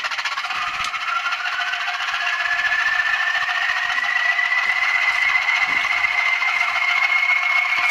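Model Class 20 diesel locomotive's sound decoder playing the engine start-up: a steady engine noise with a whine that rises slowly in pitch and then levels off.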